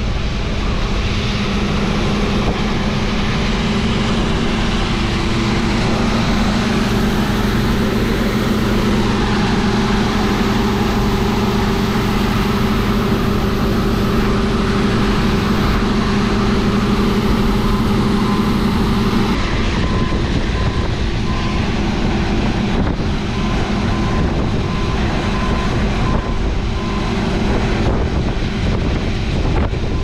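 John Deere 9670 combine harvester running steadily under harvest load, a constant mechanical hum. About twenty seconds in, a repeated high beep starts sounding on and off.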